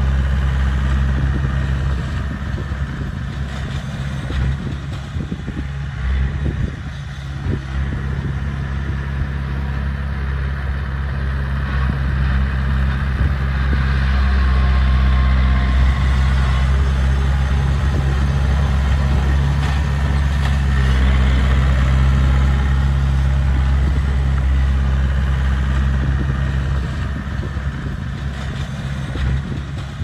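Small crawler bulldozer's diesel engine running steadily with a low hum while the blade pushes soil, getting somewhat louder from about halfway through.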